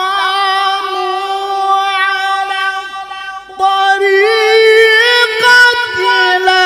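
A qari's voice in melodic Qur'an recitation, holding a long drawn-out note. It breaks briefly a little after halfway, then resumes louder on a higher, wavering pitch.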